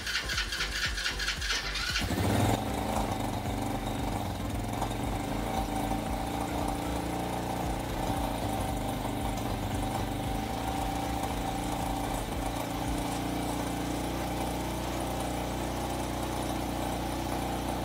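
A 110cc Chinese ATV's single-cylinder four-stroke engine cranking on its electric starter, catching about two seconds in, then running steadily at a high idle. The idle screw will not bring the idle down, and the owner suspects a throttle stuck open or a carburettor slide not seated all the way.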